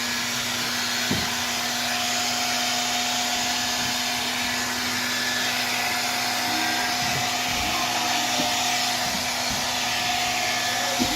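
Hair dryer blowing steadily, a continuous whoosh of air with a steady motor hum.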